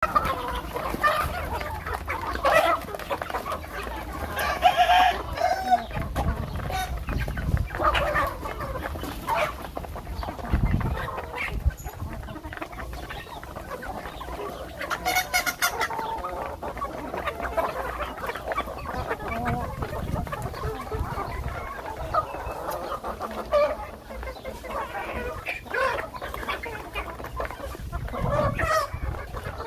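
Chickens clucking, many short overlapping calls from several birds.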